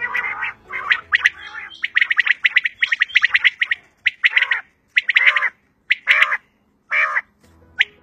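Caged quail (batair) calling: short bursts of quick, rapidly repeated notes. Several calls overlap in the middle, then single calls come about once a second.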